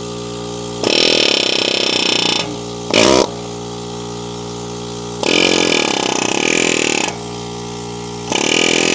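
Pneumatic air hammer with a chisel bit hammering at a stripped, seized screw in a brake hub, in four bursts of rapid blows: two of nearly two seconds, a short one about three seconds in, and another near the end. A steady machine hum runs underneath.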